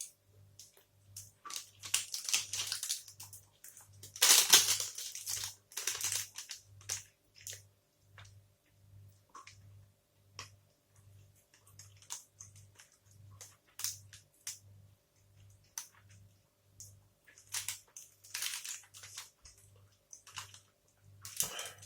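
Close-miked sounds of eating a protein bar: irregular wet chewing and crackling bursts, loudest about four seconds in and again near the end.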